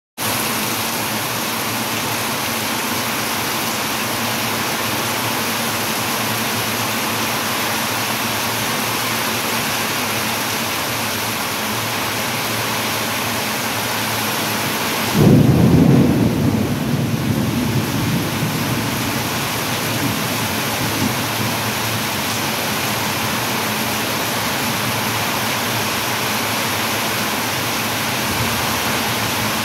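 Heavy rain pouring steadily, a continuous hiss. About halfway through, a sudden loud thunderclap rumbles away over a few seconds.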